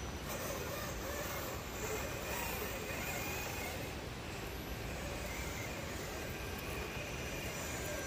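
Motor and gear whine of a scale RC crawler pickup with a Tekin ROC412 brushless motor, rising and falling in pitch as it climbs over rock, over a steady low rumbling noise.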